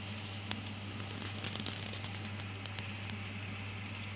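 Bread-and-milk gulab jamun balls frying in hot oil as they are dropped in: a soft sizzle with scattered small crackles and pops, thickest in the middle. A steady low hum runs underneath.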